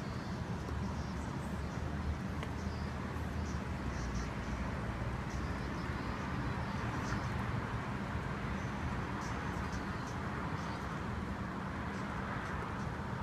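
Steady low outdoor rumble with short, high bird chirps scattered through it.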